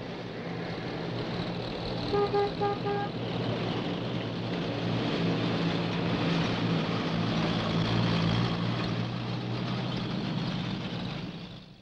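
Military truck engine running as the truck approaches and drives past, growing louder toward the middle. About two seconds in its horn gives four quick toots.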